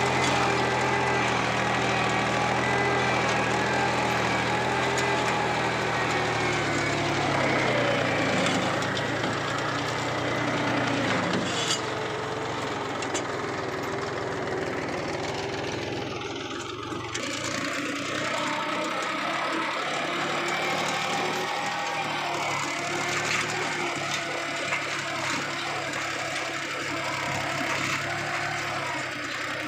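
Mahindra 275 DI tractor's three-cylinder diesel engine running steadily while pulling a cultivator through ploughed soil. Its note drops in pitch about seven seconds in and stays lower, with a brief dip about halfway through.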